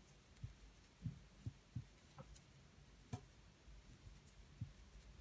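Near silence, with faint, irregular soft taps and ticks from hands working a fine steel crochet hook and yarn.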